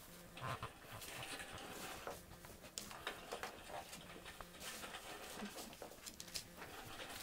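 Four-week-old bullmastiff puppies scuffling and scratching in wood-shaving bedding while mouthing a plush toy: a run of short rustles, clicks and scuffs, with brief puppy noises.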